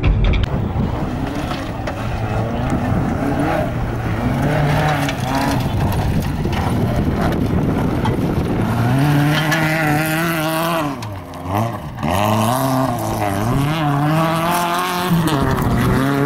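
Rally car engine revving hard on a gravel slalom course, its pitch climbing and falling as the driver accelerates, lifts off and shifts. About eleven seconds in it drops off sharply, then winds up again.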